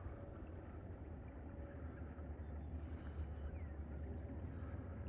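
Outdoor ambience: a steady low rumble, with a few short faint high chirps near the start and again near the end, and a brief hiss about three seconds in.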